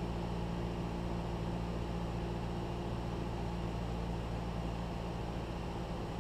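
Cessna 172's piston engine and propeller in flight, a steady drone heard from inside the cabin.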